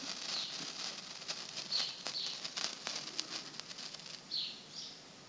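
A small lit firework crackling, with rapid irregular pops over a steady fizz. Birds chirp faintly now and then.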